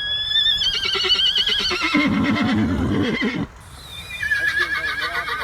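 Horse whinnying twice. The first is a long, quavering call that starts high and falls in pitch, ending in a low shudder. The second quavering call begins a little past the middle.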